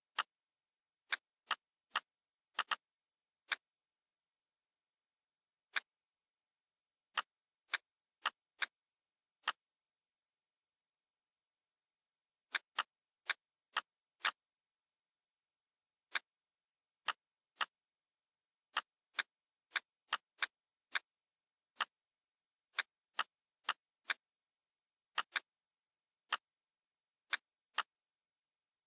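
Computer mouse clicks, single and now and then doubled, sharp and irregularly spaced, with dead silence between them.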